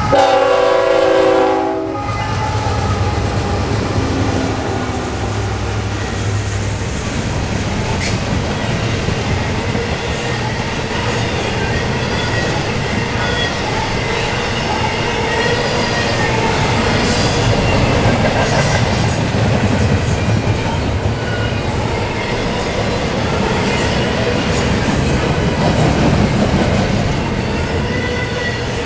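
A GE ET44AC diesel locomotive's air horn ends about two seconds in as the lead units pass, followed by a heavy low rumble from the locomotives' diesel engines. Then comes the steady rolling noise of double-stacked container cars, with wheels clicking over the rail joints and occasional brief high squeals.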